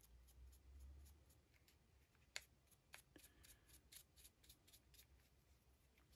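Near silence, with the faint scratch of a paintbrush stroking over a 3D-printed miniature: soft, repeated ticks about four a second.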